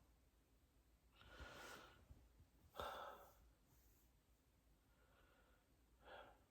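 A person breathing in soft, sighing breaths between hiccups: a long breath about a second in, a sharper one about three seconds in, and a short faint one near the end.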